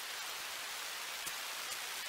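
Steady high hiss with a few faint scattered ticks: the road and wind noise of moving along a paved path, picked up by a small action-style camera's microphone.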